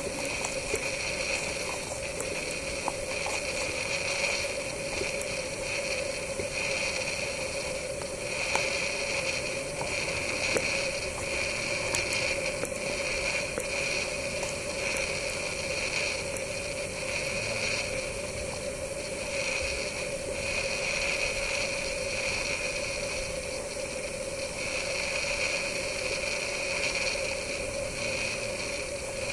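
Steady evening insect chorus: a high drone that swells and fades every few seconds over a lower steady hum, with a few faint clicks.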